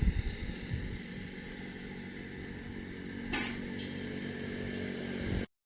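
A motor running steadily, with two sharp clicks about three and a half seconds in; the sound cuts off abruptly just before the end.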